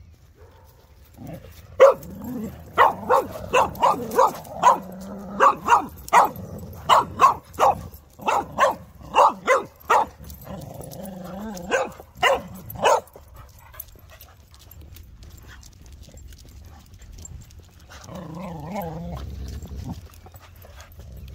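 A dog barking in a quick run of sharp barks, about two a second, which stops a little past halfway.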